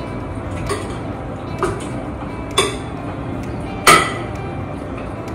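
A metal spoon clinking and scraping against a bowl and the rim of a pressure cooker as marinated chicken is spooned into the cooker: four short clinks, the loudest about four seconds in, over a steady hum.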